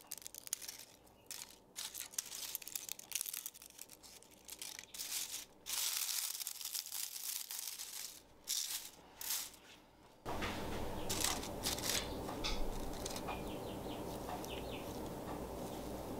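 Brittle freeze-dried kale leaves crackling and crunching as fingers crumble them, in short irregular bursts. About ten seconds in a steady low hum comes in, with faint scattered ticks over it.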